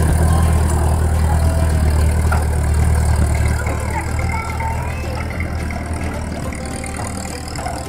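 Tractor engine running with a steady low drone, growing quieter after about three seconds.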